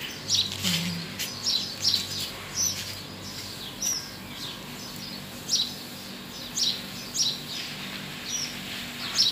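A small bird chirping over and over: short, high chirps at irregular intervals, roughly one a second.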